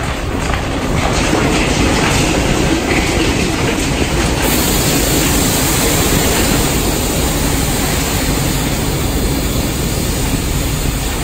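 Processed concrete rubble pouring out of a side dump trailer's tipped tub into a hopper, a steady loud rattling rumble.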